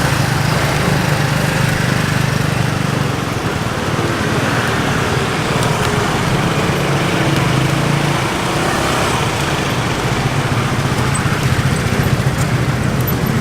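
A small engine running steadily, a constant low drone over busy outdoor street noise.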